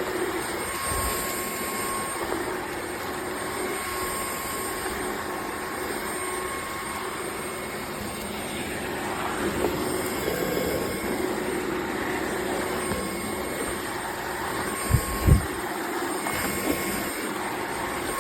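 Dreame H12 Pro cordless wet-dry vacuum and mop running steadily: an even whoosh of suction with a faint motor whine, and two low thumps about three seconds before the end.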